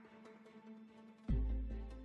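Background music with sustained held notes, and a deep bass boom about 1.3 s in that falls in pitch and fades slowly.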